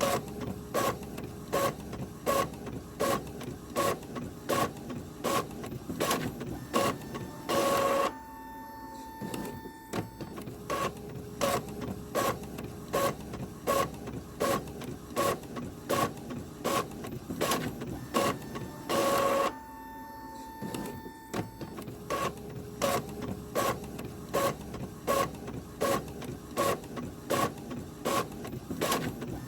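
Office printer printing and moving paper: a run of rapid mechanical clicks, about three a second. About every eleven seconds, once early and once past the middle, a louder burst of about a second is followed by a short lull with a steady hum before the clicking starts again.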